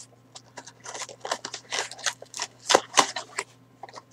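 Packaging of a boxed vinyl figure being handled and opened by hand: irregular rustles, crinkles and small clicks, over a faint steady electrical hum.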